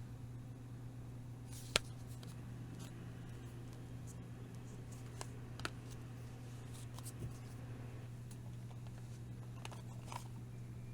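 Hands handling album packaging: a sharp click about two seconds in, then a few softer taps and rustles, over a steady low hum.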